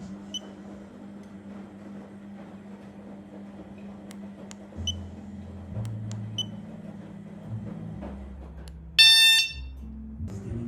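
Low background music with a few faint clicks, then, about nine seconds in, a loud electronic beep lasting about half a second.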